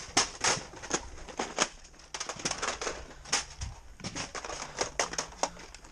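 A rapid, irregular run of sharp plastic clicks and knocks as Nerf blasters and foam darts are grabbed and handled.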